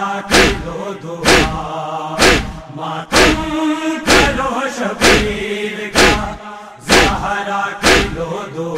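Mourners beating their chests in unison (matam) to the rhythm of a Muharram noha, about one heavy slap a second, under a chanted chorus of men's voices holding the tune.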